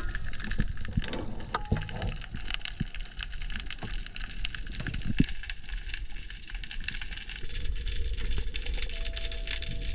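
Underwater ambience heard through a diver's camera housing: a steady low rumble with scattered crackling clicks, and a faint steady tone that comes in about nine seconds in.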